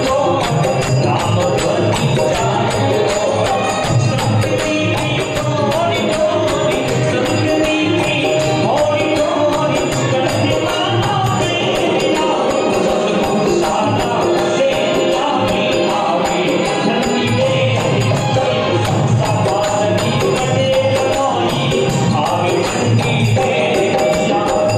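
Live Marwari desi bhajan, a Rajasthani devotional folk song, played loudly and continuously: singing over instrumental accompaniment with steady percussion.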